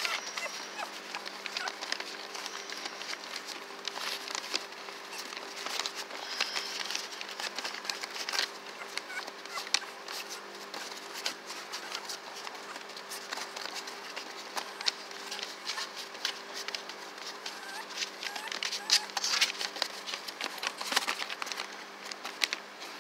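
Yorkshire terrier puppies scrabbling and tussling on newspaper: a constant patter of small scratches, clicks and paper rustles, with a few brief high squeaks.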